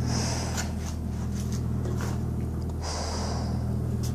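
Two short, hissy breaths close to the microphone, one at the start and one about three seconds in, over a steady low electrical hum.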